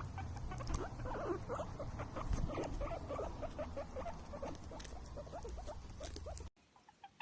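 A rapid, dense chatter of short squeaks from small animals, which stops abruptly near the end.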